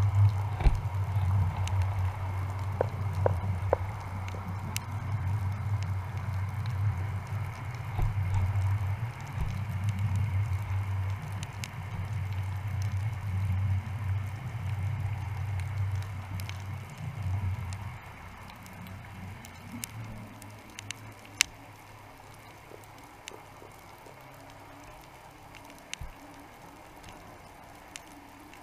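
Underwater sound picked up through a GoPro's waterproof housing on the sea floor: a low, wavering rumble that drops away about two thirds of the way in, leaving a faint hiss with scattered small clicks and crackles.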